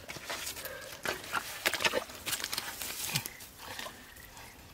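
Bare hands digging and working in wet mud: irregular wet squelches and slaps, busier at first and thinning out toward the end.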